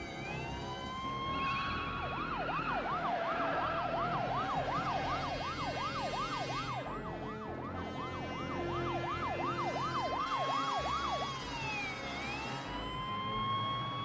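Police car siren: a slow rising and falling wail that switches about two seconds in to a fast yelp of about three sweeps a second, then goes back to a slow wail near the end.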